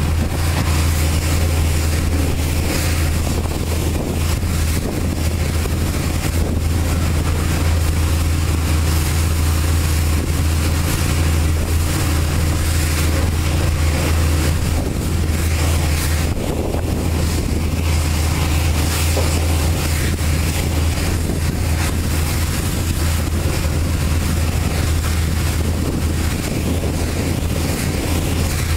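Pressure washer wand spraying the wheels and tyres of a dump truck trailer: a steady hiss of the water jet over a constant low engine hum.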